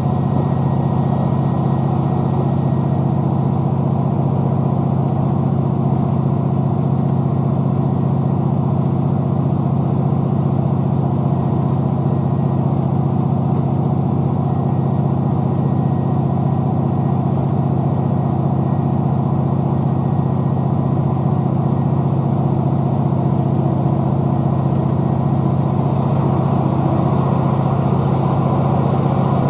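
Underfloor MAN D2876 diesel engine of a Class 769 bi-mode train running steadily with a low, even drone, heard from inside the passenger saloon above it.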